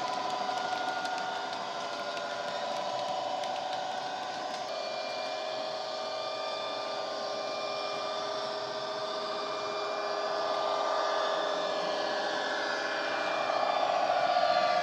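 Recorded Class 66 diesel engine sound (EMD two-stroke) played from a model locomotive's DCC sound decoder through a small tablet speaker, running steadily. The sound changes abruptly about a third of the way in, and the engine note rises and grows louder near the end.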